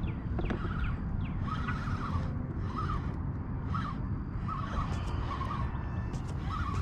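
Wind buffeting the microphone in a steady low rumble, with short higher-pitched sounds repeating about once a second over it.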